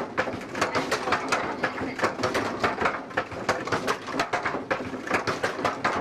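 Coffee-pounding mill's machinery knocking and clattering in a fast, uneven rhythm, several knocks a second.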